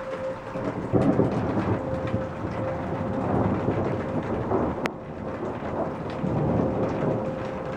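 A distant tornado warning siren holds a steady tone under louder rumbling storm noise. A sharp click comes about five seconds in.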